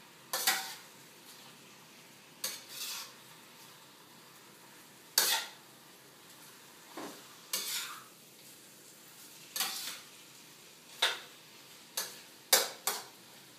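A metal utensil scraping and knocking against a steel wok as chicken livers are stirred and browned over a gas flame: about a dozen separate, irregular strokes, with a faint sizzle between them.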